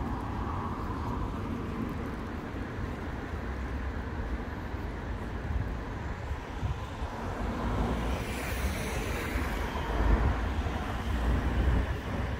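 Street traffic: a car driving past on the road, its tyre noise swelling and fading about two thirds of the way in, over a steady low rumble.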